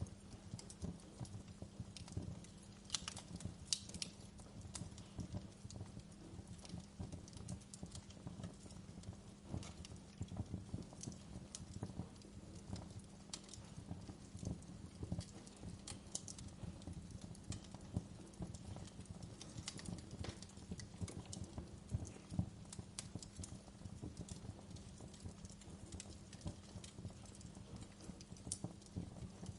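Wood campfire crackling, with frequent irregular pops and snaps over a steady low rumble of the burning fire.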